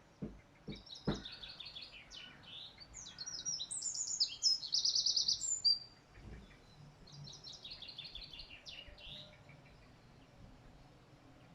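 Songbird singing in quick runs of high, twittering chirps: a longer, louder bout in the first half and a shorter one after a brief pause. A few soft low knocks sound near the start.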